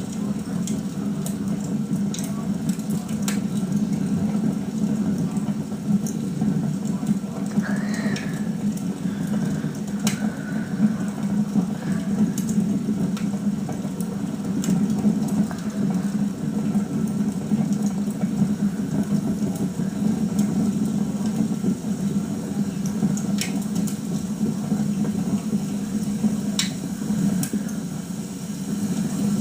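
Wood fire crackling in a fireplace: a steady low rushing hiss with scattered sharp pops and snaps at irregular intervals, played through a TV speaker.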